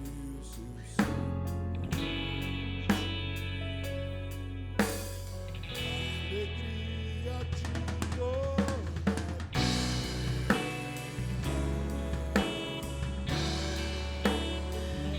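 Instrumental band music at a slow tempo: a drum kit with a sharp accent about every two seconds over deep held bass notes and sustained chords.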